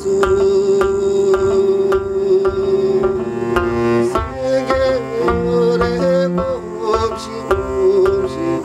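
A man singing a Tibetan melody, holding one long note for about four seconds and then moving through an ornamented, wavering line, over steady strumming of a Tibetan dranyen lute. A cello plays sustained bowed notes underneath.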